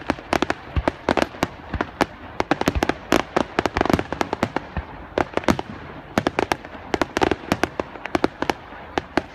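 Fireworks finale: a rapid, dense barrage of aerial shell bursts, several loud bangs a second with echoing cracks between them.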